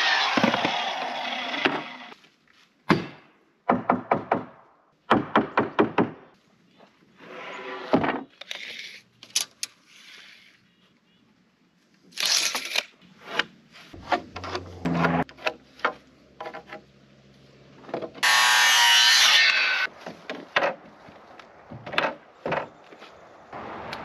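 Circular saw winding down with a falling whine after crosscutting a rough-sawn 2x4 square. This is followed by a series of sharp wooden knocks and clatters as the boards and a speed square are handled. A second short saw cut comes about three-quarters of the way through.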